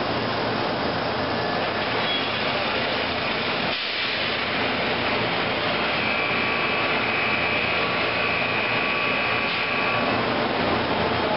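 Steady industrial machine noise from a heavy-gauge vacuum forming machine as the clamped plastic sheet travels into the oven for heating, with a faint high whine for a few seconds past the middle.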